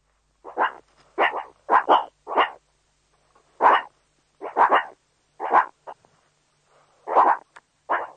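Dog barking: about a dozen short barks, some in quick pairs, with a pause of about a second near the middle.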